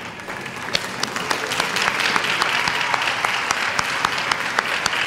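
Audience applauding, swelling over the first couple of seconds into steady clapping with many sharp individual claps standing out.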